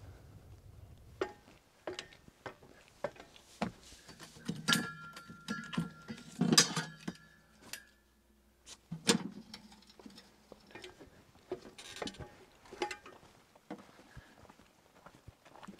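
Metal camping gear being handled: a portable grill and a folding wire-legged metal table knocking and rattling as they are moved. Several louder clanks come through the middle, some ringing briefly.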